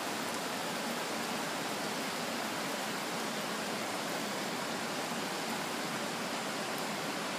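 Steady rushing of a river swollen by typhoon rain: a dense, even wash of water noise without breaks.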